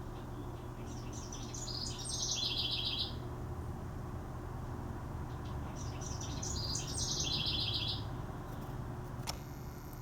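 A songbird singing two similar songs about five seconds apart, each a quick run of high notes ending in a fast trill. There is a faint steady low hum throughout and a sharp click near the end.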